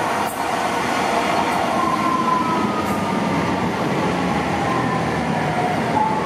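Alstom Citadis Spirit light rail train pulling into a station platform and slowing, with the steady running noise of the train over a whine that falls in pitch as it decelerates.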